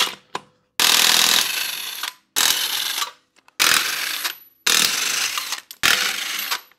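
Cordless impact wrench hammering lug nuts off a 1991 Ford F-150's front wheel, in five bursts of about a second each with short pauses as it moves from nut to nut.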